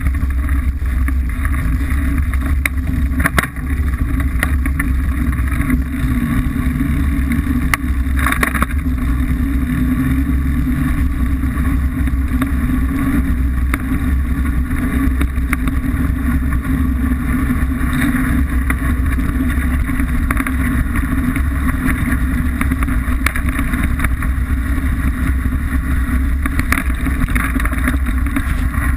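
Mountain bike riding down a dirt singletrail: a steady rumble of wind buffeting the microphone over the crunch of tyres on loose dirt and gravel, with a few sharp knocks from the bike over bumps.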